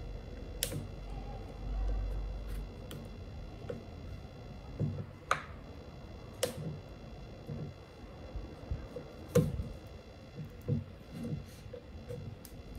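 A hand screwdriver turning screws out of a Dyson V8 vacuum's plastic cyclone assembly. Scattered clicks and light knocks come at irregular intervals as the tool and plastic parts are handled.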